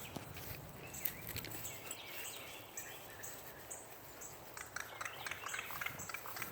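Crow calling from a tree in short bouts of rapid, rattling clicks, about a second in, again around two seconds in and around five seconds in. A faint high-pitched insect chirp pulses about twice a second underneath.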